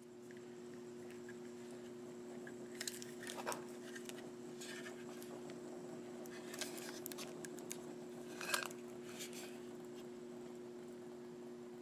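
Plastic bag around a Wi-Fi adapter's antenna base crinkling and crackling in short scattered bursts as it is handled, over a steady low hum.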